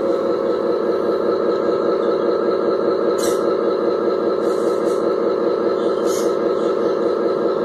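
Radio-controlled model Scania truck running with a steady, rhythmic engine-like drone, broken by two short hisses about three seconds in and again about six seconds in.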